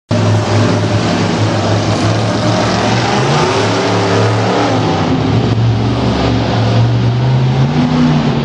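Bigfoot "Bessie" monster truck's engine running loud in an indoor arena, revving repeatedly so its pitch rises and falls as the truck drives across the dirt floor.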